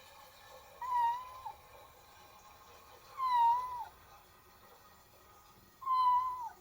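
Kitten meowing three times, each meow short and fairly steady in pitch before dropping at the end, while it relieves itself for the first time.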